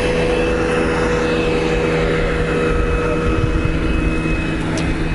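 A motorboat's engine drones steadily on the river, several even tones over a low rumble.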